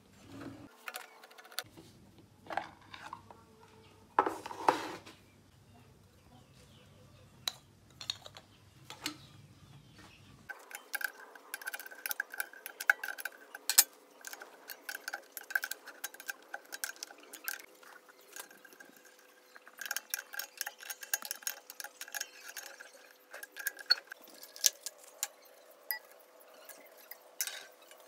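Scattered clicks, taps and clinks of hands working on small compressor parts: an air hose and push-fit fitting, a pressure switch and its wiring. From about ten seconds in there is a faint steady hum.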